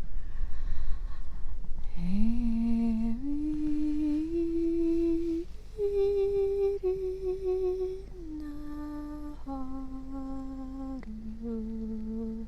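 A voice humming wordless 'light language' tones: long held notes that rise in steps and then fall again, each held a second or more, starting about two seconds in.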